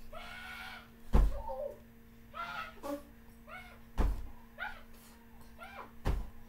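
Three heavy thuds of blows landing on a sofa, about a second in, near the middle and near the end, with short high-pitched cries in between.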